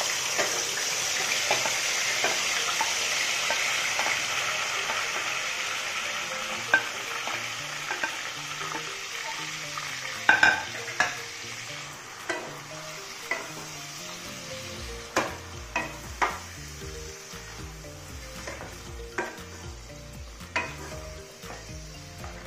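Yogurt-marinated mutton sizzling loudly as it goes into hot mustard oil in a kadai, the sizzle slowly dying down over the first ten seconds or so. From about seven seconds in, a wooden spatula stirs the meat with irregular sharp knocks and scrapes against the pan.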